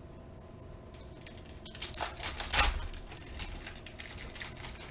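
Panini Prizm basketball cards being handled: a run of quick clicks and rustles as the stiff chrome cards are slid and flipped one over another. It is loudest about two seconds in.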